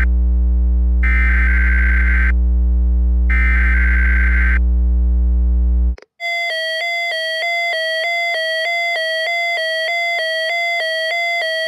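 Emergency Alert System header data tones: buzzy digital bursts about a second long, sent over a steady mains hum. About six seconds in they cut off, and an electronic alert tone starts, stepping back and forth between pitches several times a second, as the attention signal before a child abduction emergency (Amber Alert) message.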